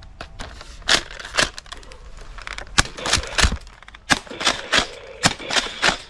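Toy foam-dart shotgun being worked and fired at targets: about a dozen sharp clicks and knocks at uneven intervals, the plastic action clacking and darts striking the targets.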